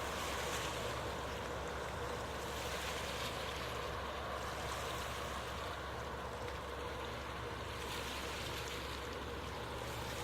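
Passenger ferry Hellenic Spirit under way, a steady low engine hum beneath a constant rush of water. No horn sounds.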